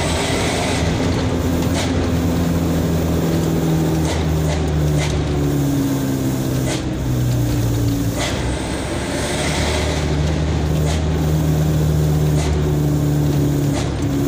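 A truck's engine running, heard from inside the cab, its pitch shifting up and down a few times as the truck drives on a narrow winding road. Two spells of hissing, one at the start and one about eight seconds in, and a few faint clicks.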